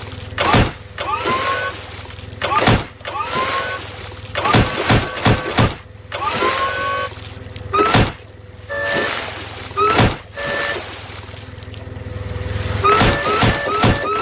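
A forklift running, with a rising whine every couple of seconds as its forks are driven into a whale's carcass, each thrust ending in heavy thudding impacts, several in quick succession midway and again near the end.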